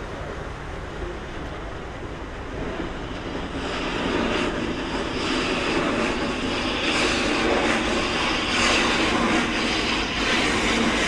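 Passing traffic noise that swells about three seconds in and stays loud, with no clear engine tone.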